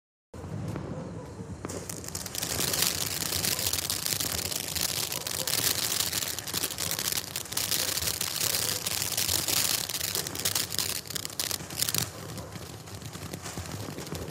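Black Cat 'Quiet' ground fountain firework spraying sparks: a steady hiss thick with fine crackling, with no bangs. It rises to full strength about two seconds in and settles to a softer hiss about twelve seconds in.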